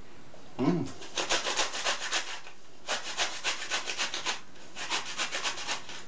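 Pear being grated on a metal box grater: quick rasping strokes, about six a second, in three runs with short pauses between, after a brief thump at the start.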